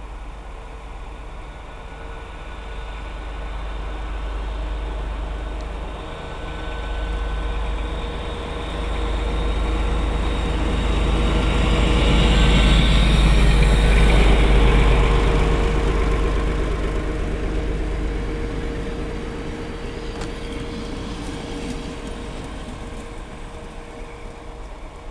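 Passenger train passing through a station without stopping. Its rumble grows as it approaches, is loudest about halfway through, and fades as it pulls away.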